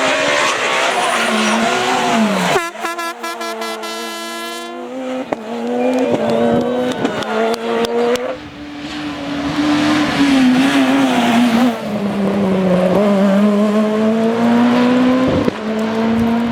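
Super 2000 rally cars' naturally aspirated 2.0-litre four-cylinder engines revving hard, the engine pitch climbing and dropping again and again through gear changes, with the sound changing abruptly a few times as one car gives way to another.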